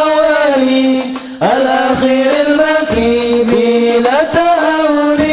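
A single voice chanting a slow, melismatic melody with long held notes that bend and waver, breaking off briefly for a breath about a second and a half in.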